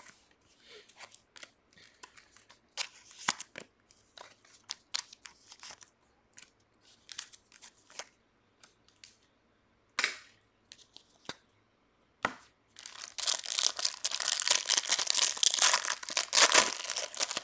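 Trading card packs being handled, with scattered small ticks and rustles of plastic wrapper. About 13 seconds in, a pack wrapper is torn open with a loud, continuous crinkling tear.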